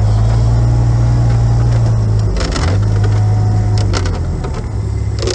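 A vehicle's engine and road noise heard from inside the cabin while driving on snowy streets. A steady low drone dips briefly about two seconds in and fades near the end as the vehicle slows, with a few light clicks and knocks along the way.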